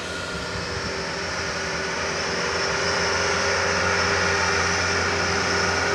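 Engines of loaded sugarcane trucks pulling hard up a steep bend toward the listener: a steady engine drone with a held whine that slowly grows louder as they approach.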